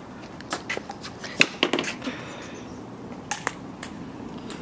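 Light, sharp ticks of a ping-pong ball striking the table, paddle and concrete, about a dozen scattered irregularly, with a quick run of bounces between one and two seconds in.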